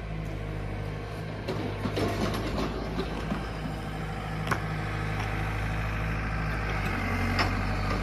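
Compact utility tractor's diesel engine running at a steady speed while its backhoe digs. Irregular scrapes and knocks from the digging start about a second and a half in, with a sharp knock about four and a half seconds in.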